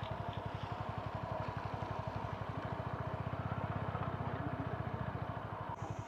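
Motorcycle engine running steadily, an even, rapid low pulsing that swells slightly in the middle.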